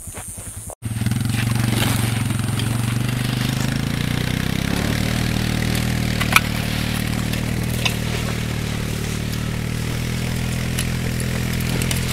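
ATV engine running steadily under way, starting loud after a sudden break about a second in, with a few sharp knocks over it.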